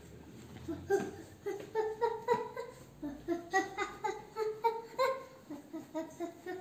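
A young child giggling and laughing in a string of short, quick bursts, starting about a second in.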